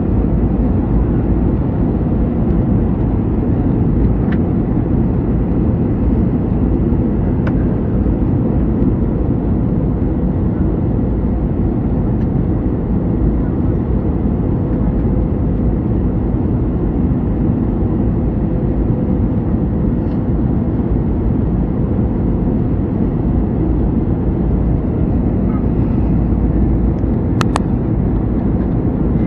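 Steady jet airliner cabin noise, heard from a window seat during the landing approach: a low, even engine and airflow noise with a faint steady hum. A brief sharp sound near the end.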